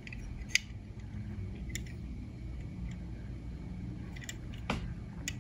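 Small clicks and taps from fingers handling a diecast model car, the sharpest about half a second in and again near the end, over a low steady hum.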